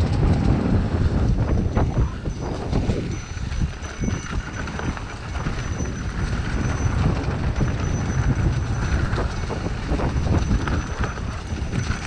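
Mountain bike clattering and rattling over a rough dirt trail on a downhill run, a dense stream of irregular knocks from the frame and chain over a steady rumble of tyres and wind on the microphone.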